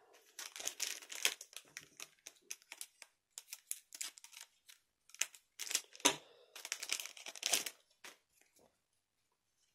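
Irregular crinkling and rustling of a trading-card booster pack's plastic wrapper being handled and opened; it stops about eight seconds in.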